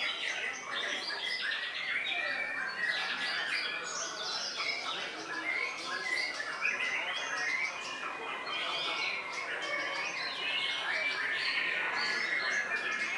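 White-rumped shamas (murai batu) singing in competition: a dense, unbroken stream of overlapping whistles, chirps and harsh notes from several birds at once.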